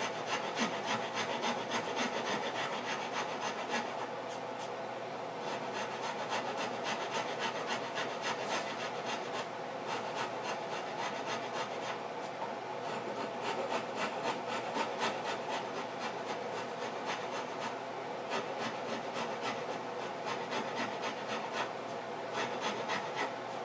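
A hand rasp scraping the wood of a guitar body in steady, repeated strokes, shaping the body around the neck heel.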